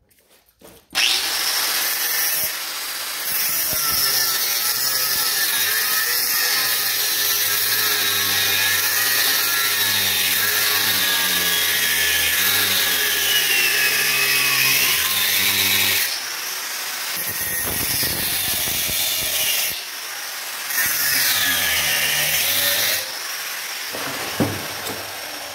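Small angle grinder with a thin stainless-steel cutting disc cutting through 16 mm thick steel plate, the motor's whine dipping and rising as the disc bites. The cut stops and starts a few times in the second half.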